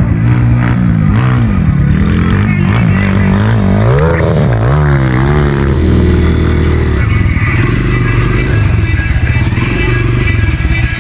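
Racing motard motorcycles' engines revving, the pitch swooping up and down as the bikes accelerate and back off, then settling into a steadier drone about halfway through.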